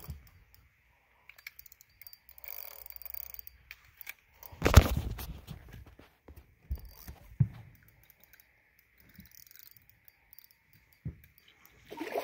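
Scattered knocks, rubs and bumps from a phone being handled while the net is held, with one loud thump about five seconds in and a few smaller knocks later.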